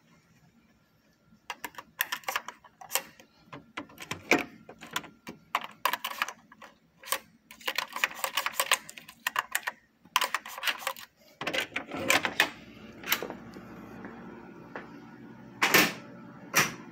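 Hotel room door being unlocked with a key card: repeated sharp clicks and rattles of the card in the lock and the lever handle, followed by a steady low background hum once the door opens, with two more sharp clicks near the end.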